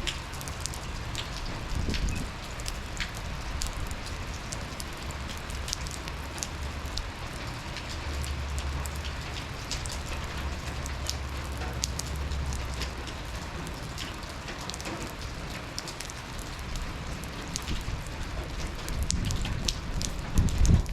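Steady rain falling, with many individual drops tapping sharply through the hiss and a low rumble underneath that swells from about eight to thirteen seconds in.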